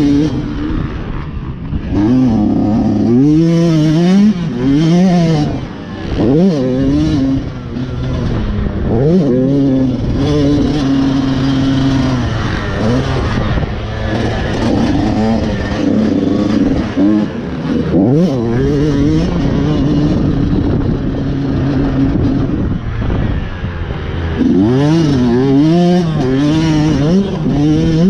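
Yamaha motocross bike's engine being ridden hard, its pitch revving up and dropping back again and again with the throttle through the course.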